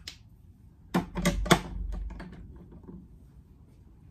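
Handling noise: a click, then about a second in a quick cluster of clicks and knocks with a dull thud, like small objects being picked up and set down close to the microphone, fading away within about two seconds.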